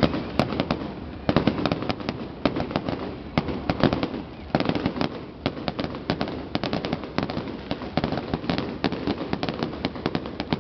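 Fireworks going off in quick, irregular succession: a dense crackle of many sharp pops and bangs a second, with no let-up.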